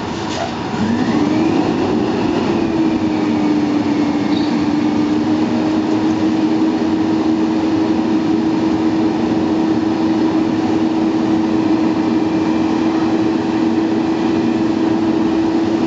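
Automated side-loader garbage truck's engine speeding up about a second in, then holding a steady high drone while the truck works its can-grabbing arm.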